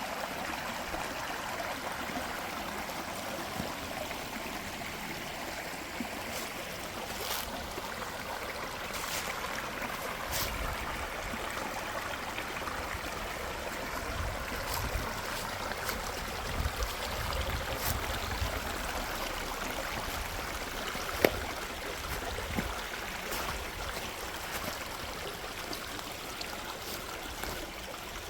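Mountain valley stream running steadily, an even rush of water, with a few scattered clicks and one sharp click about 21 seconds in.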